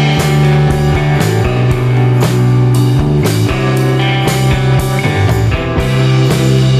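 Rock music with guitar and drums, a steady beat throughout.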